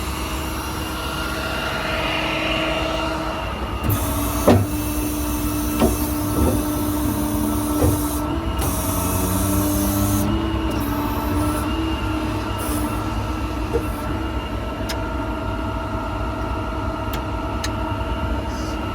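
Diesel engine of an International DuraStar service truck running steadily, with a whining tone that shifts in pitch as equipment is worked. A few sharp clicks and short hisses of air are heard in the first half.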